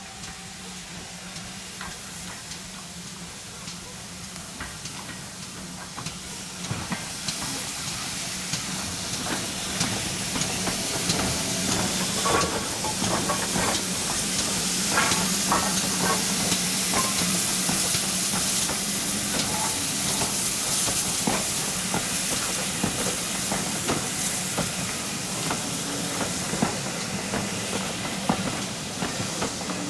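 Steam locomotive hissing loudly with scattered metallic clanks, growing louder over the first half and holding there, over a low steady hum.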